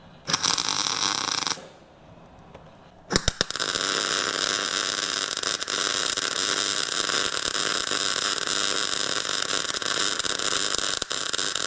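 MIG welder arcing on steel: a short tack of about a second, then after a pause a couple of sputtering starts and a long steady crackling bead of about eight seconds, joining steel angle to the 6 mm plate of a truck's new rear floor.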